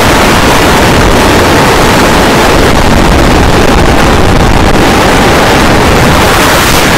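FPV drone's motors and propellers heard through its onboard camera: a loud, even rush of prop wash and wind on the microphone, with a faint motor whine under it.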